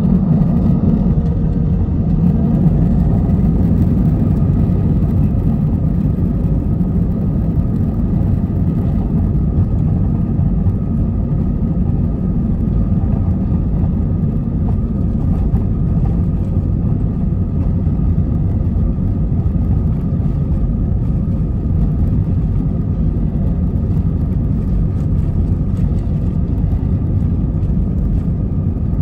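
Cabin sound of an Airbus A320-214's CFM56 engines at low power while the jet taxis: a steady deep rumble with a faint steady whine over it, heard from a window seat over the wing.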